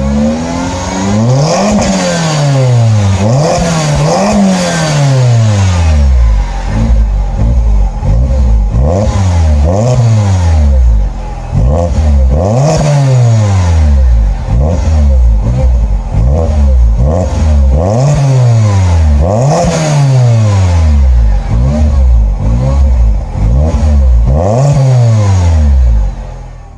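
Citroen DS3 1.6 THP turbocharged four-cylinder petrol engine through an Ulter Sport aftermarket exhaust, revved over and over. Each rev climbs and drops back, with a few longer revs first and then a run of quicker blips.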